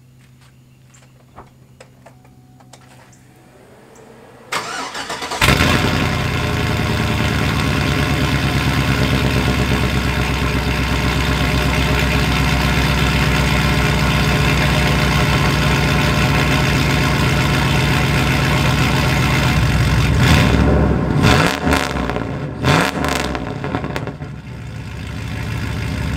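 Cold start of a 1999–2006 Chevy Silverado V8 with long-tube headers, a catless Y pipe and straight-piped exhaust. The starter cranks briefly about four and a half seconds in, then the engine catches and runs loud and steady at a cold idle, rising and falling a few times near the end.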